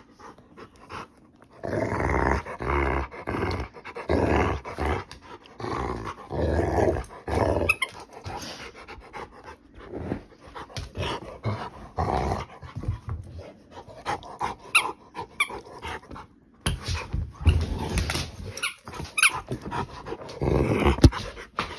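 Rottweiler play-growling in repeated rough bursts with short gaps while tugging at a toy ball. The growling is loudest in the first few seconds and again near the end, with scattered short clicks in between.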